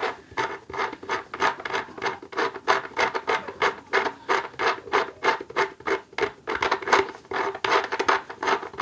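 Felt-covered cat tree cap being twisted by hand onto a threaded bolt on top of a sisal-wrapped post: repeated rubbing and scraping strokes, about three a second.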